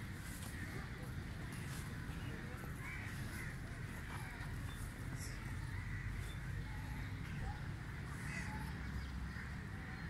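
Birds calling outdoors in short, scattered calls, over a steady low rumble.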